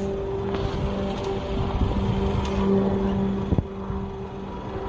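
A steady engine hum over a low rumble, holding one unchanging pitch, with a sharp click about three and a half seconds in.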